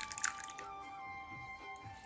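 Quiet background music with light splashing and dripping of watermelon juice being poured.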